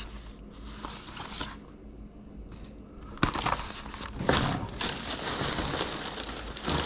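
Crumpled printed-paper packing rustling and crackling as a gloved hand rummages through it in a cardboard box. It begins with a sharp crackle about three seconds in and gets louder. Before that there are only faint handling sounds.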